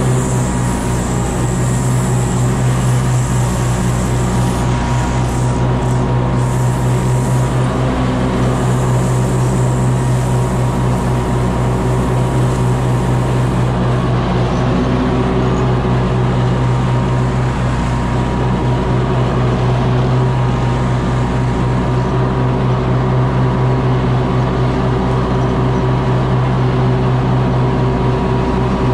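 Stand-on commercial mower's engine running steadily at a constant speed, heard close up from the operator's platform.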